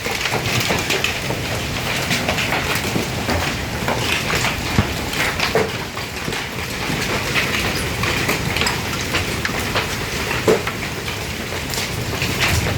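Hail falling with rain: a steady dense hiss full of sharp clicks and knocks from individual hailstones striking surfaces, with one louder knock near the end.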